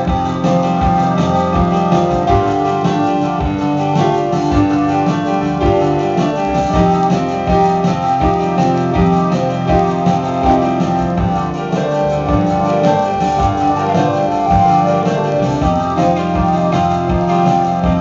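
Live instrumental band playing: keyboards and electric guitar over drums, with steady, busy percussion hits under shifting melodic lines.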